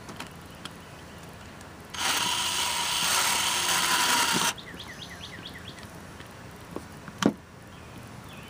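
Hart cordless drill running at speed for about two and a half seconds, its bit boring into a high-heeled shoe, then cutting off abruptly. A single sharp knock comes a few seconds later.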